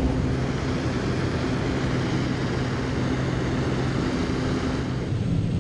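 Steady drone of a small single-engine propeller jump plane in flight, engine hum with rushing air noise. The low hum shifts slightly near the end.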